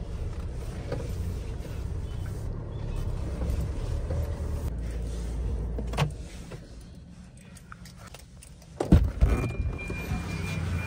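Tata Harrier's diesel running in the cabin as a steady low rumble, then a sharp click about six seconds in, after which the running noise falls away as the car stops. Near the end come a few loud knocks, as the driver's door is handled, then a steady high warning chime.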